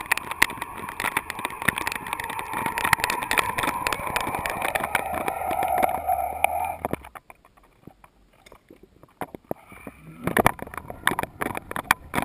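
Underwater sound through a camera's waterproof housing as it moves through the sea: water rushing and rattling with many clicks, and a steady whine that sinks slightly in pitch. The whine cuts off about seven seconds in, leaving a quiet stretch, then irregular clicks and knocks near the end.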